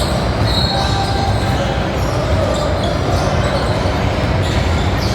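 Basketball game in a gym: the ball bouncing on the hardwood and short high sneaker squeaks over a steady crowd-and-court din.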